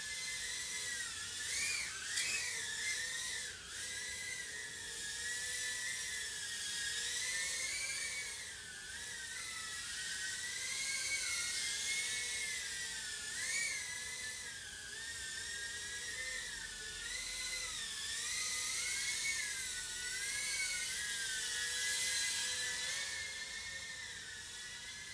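Tiny whoop quadcopter's four brushless motors (HappyModel EX1102 9000KV with 40mm four-blade props) whining in flight. Several close high tones rise and fall with the throttle.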